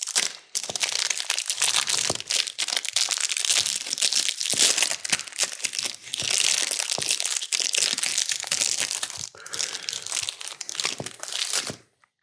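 Plastic wrapping of Funny Bones snack cakes crinkling and crackling as it is handled and torn open, in long runs with short breaks.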